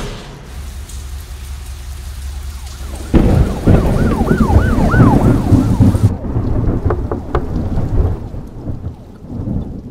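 Thunder-like rumble with a hiss like rain. About three seconds in comes a sudden loud crash that rumbles on for several seconds, with a few short whistling swoops, and it dies down near the end.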